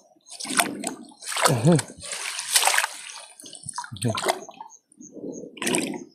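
A mesh crayfish cage trap being lowered into shallow water: a string of splashes and sloshing as the netting goes under, with one longer rush of water about two and a half seconds in.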